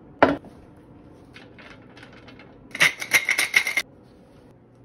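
Kitchen prep sounds: a sharp knock just after the start, a few light taps, then about a second of fast clicking.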